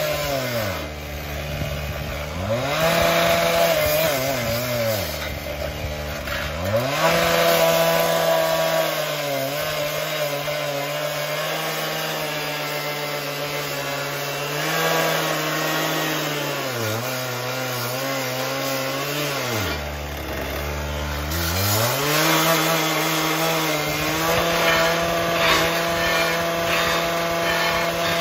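Two-stroke gas cut-off saw cutting through a steel post. The engine is held at high revs while cutting and drops back to idle three times, about a second in, around five seconds and around twenty seconds, revving back up each time.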